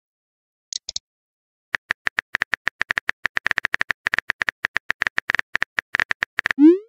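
Simulated phone-keyboard tap clicks, fast and uneven, as a text message is typed letter by letter. They are followed near the end by a short rising swoop as the message is sent.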